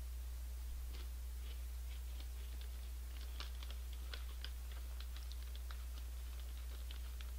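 Crunching of Honey Tong Tong snack chips being chewed close to the microphone: a run of small, irregular crisp crackles, thickest in the middle, over a steady low electrical hum.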